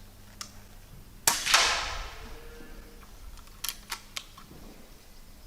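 A shot from a .177 Weihrauch HW100 KT pre-charged air rifle: a sharp crack about a second in, a second crack right after it, and a fading ring. A few short clicks follow near four seconds in.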